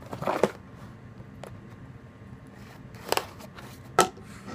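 Knife slitting the tape on a cardboard shipping box: a few short scraping cuts near the start, about three seconds in and again at four seconds.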